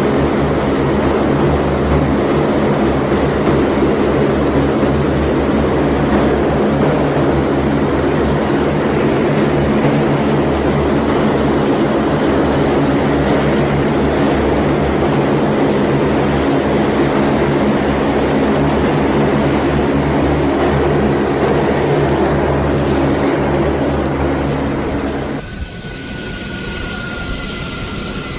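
C-130J Super Hercules turboprop engines and six-bladed propellers running on the ground: a loud, steady drone. About 25 seconds in it drops to a quieter, thinner whine.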